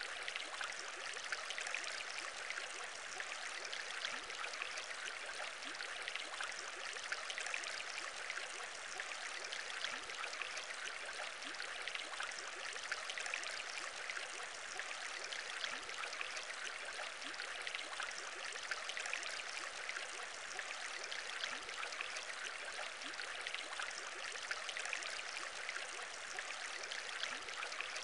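Aquarium bubbling: a steady stream of small bubbles rising and popping, with trickling water, unchanging throughout.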